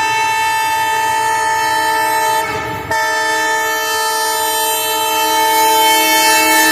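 WDM3A diesel locomotive's air horn sounding a long, steady blast. It cuts out briefly about two and a half seconds in, then sounds again, with a faint low rumble of the passing train beneath.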